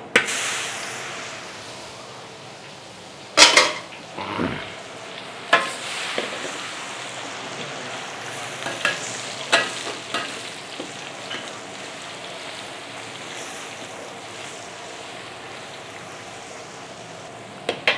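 Chopped garlic sizzling in hot oil in a large wok: the sizzle is loudest as the garlic hits the oil, then settles into a steady frying hiss. A metal wok spatula scrapes and knocks against the wok now and then as the garlic is stirred, most often in the first half.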